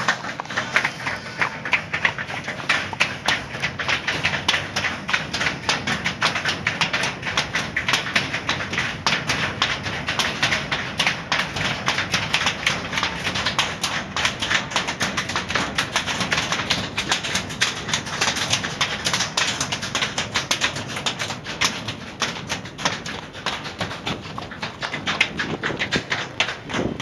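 Hooves of several horses walking across a footbridge deck, a dense, continuous run of hoof strikes.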